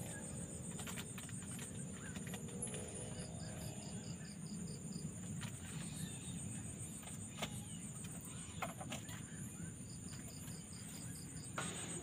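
Night insects trilling steadily in a high, continuous, pulsing chorus, with short bursts of faster pulsing about three seconds in and again near the end, and a few faint clicks.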